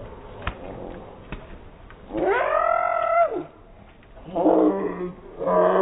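A young boy's yells slowed down in slow motion, so they come out deep and drawn-out like a roar. One long yell rises and falls in pitch about two seconds in, and two shorter ones follow near the end.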